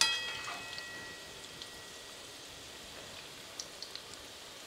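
Oil sizzling and bubbling steadily as fenugreek dumplings deep-fry in a kadai. Right at the start a steel spoon clinks against the metal kadai, which rings briefly and fades, with a few faint ticks of the spoon later.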